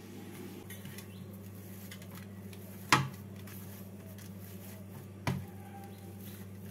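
Hands kneading a soft bread dough in a stainless steel bowl: faint rubbing and squishing with two sharp knocks against the bowl, about three seconds in and again two seconds later, over a steady low hum.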